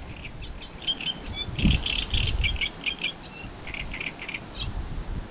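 A songbird singing in the reeds: a string of short, quick, varied high notes, some repeated in little runs. A couple of low rumbles sound under it about a second and a half to two and a half seconds in.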